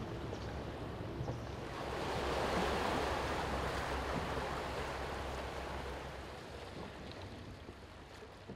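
Sea waves washing, with a low rumble of wind on the microphone; the sound swells about two seconds in and fades away near the end.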